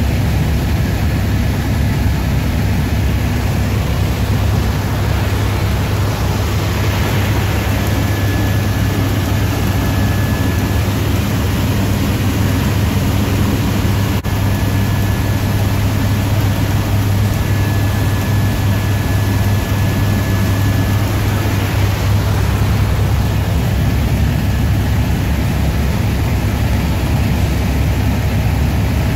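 Helicopter in cruise flight, heard from inside the cabin: a steady low rotor drone with a thin high turbine whine that comes and goes.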